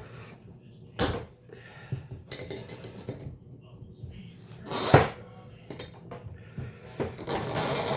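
Metal clanks and clinks of worn vise-grip locking pliers working on a shock absorber nut. Sharp knocks come about a second in, again after two seconds and loudest near five seconds, then a scrape near the end. The pliers' jaws are spreading and slipping rather than holding the nut.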